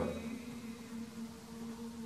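Quiet room tone in a pause between sentences, with a faint, steady electrical-sounding hum.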